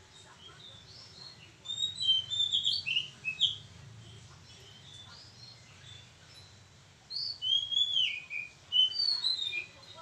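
An oriental magpie-robin singing: two bursts of quick, varied whistled phrases, one about two seconds in and the other about seven seconds in, each lasting around two seconds.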